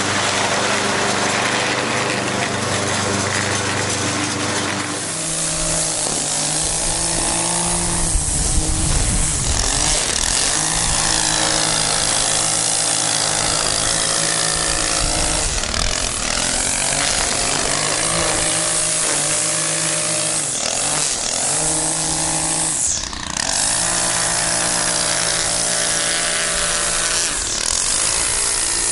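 Walk-behind push mower engine running steadily for about five seconds, then a gas string trimmer edging a sidewalk, its engine revving up and down over and over.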